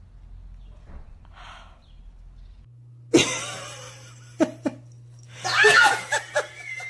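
A person laughing in several bursts, starting about three seconds in and loudest about two-thirds of the way through.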